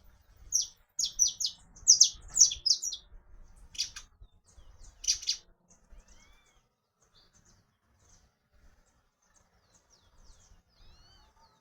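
Saffron finch (canário-da-terra) singing: a quick run of loud, sharp, high chirps in the first three seconds and two more about four and five seconds in, then only faint short calls and little gliding notes.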